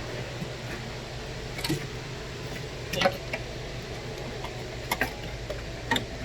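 Tools and parts clicking and knocking while vacuum hoses are fitted in an engine bay, with the engine off: about four short sharp clicks spread a second or so apart, over a steady low hum.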